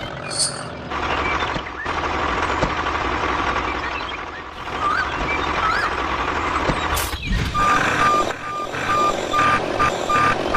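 A vehicle engine runs with a steady, noisy sound. From about seven and a half seconds a reversing alarm starts, giving a series of short beeps on one pitch.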